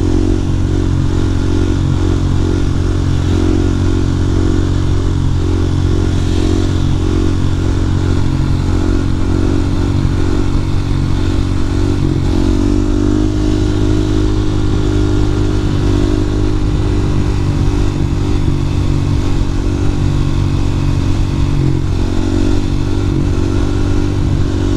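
Husqvarna 701 supermoto's single-cylinder engine running at a steady cruise, heard through a microphone inside the rider's helmet with wind noise over it. The engine note shifts slightly about halfway through.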